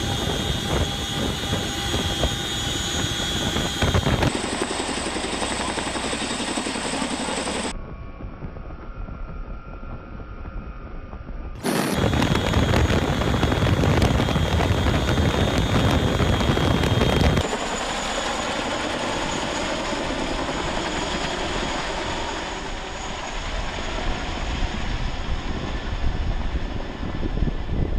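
Helicopter rotor and engine noise with wind rush, in several spliced clips. The sound shifts abruptly at each cut: it is quieter for a few seconds about a third of the way in and loudest in the middle.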